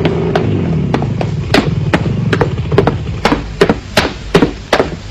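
Footsteps on a hard floor: a brisk, even walk of sharp knocks, about two to three a second, starting about a second and a half in. A low engine hum dies away in the first second.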